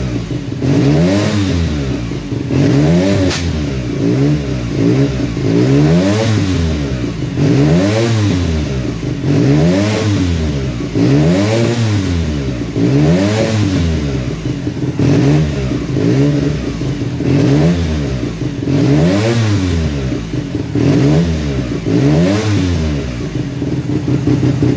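1975 Suzuki RE5's single-rotor Wankel engine, running for the first time in many years, revved up and let fall back again and again, about once every two seconds.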